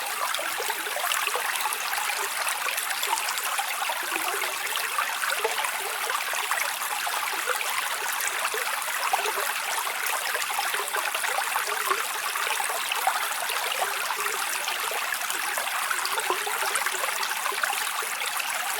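A stream of water running and trickling steadily, with many small splashes and burbles over a constant rushing hiss.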